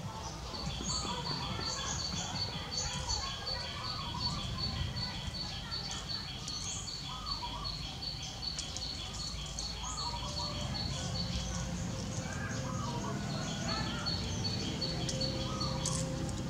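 Outdoor ambience: a bird repeating a short, high chirp about four times a second, with a short break about twelve seconds in. Other birds call now and then over a steady low background rumble.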